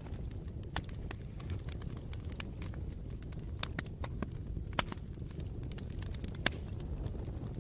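Wood fire burning with a steady low rumble and frequent irregular crackles and pops, two of them louder about five and six and a half seconds in.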